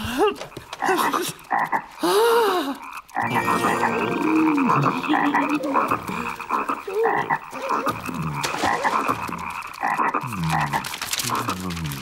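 Cartoon frogs croaking, a dense chorus of overlapping croaks that runs steadily from about three seconds in. Before that come a few short voice-like calls that rise and fall in pitch.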